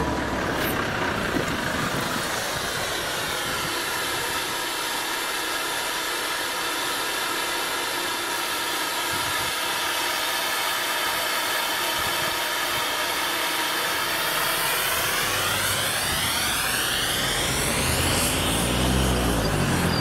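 Diesel semi-truck hauling a bulk-powder tanker trailer idling steadily close by, then pulling away with the engine note rising over the last few seconds.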